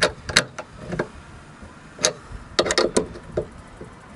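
Hand ratchet clicking in a few short, irregular bursts of sharp clicks as nuts are snugged down on bolts, with a quick cluster of clicks a little before three seconds in.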